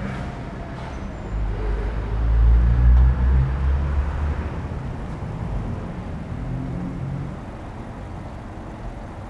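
A car driving up slowly and coming to a stop. A low engine and tyre rumble swells about two seconds in, then dies away to a faint low hum.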